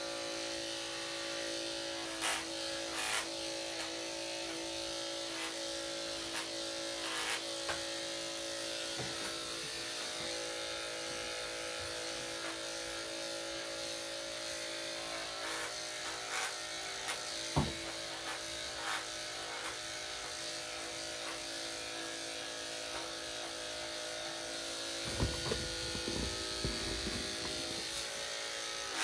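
Electric dog grooming clippers with a #7 blade running steadily with a buzzing hum while shaving the coat, with scattered light clicks. A low rumbling noise comes in for about two seconds near the end.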